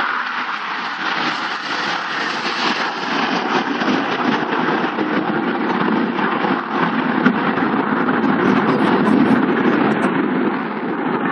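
Jet noise from the Red Arrows' formation of BAE Hawk T1 jets passing low overhead, a steady loud rush that deepens into a heavier rumble in the second half.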